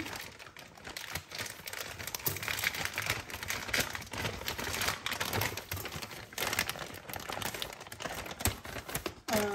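Plastic poly mailer bag crinkling and rustling as hands grip and pull at it to open it.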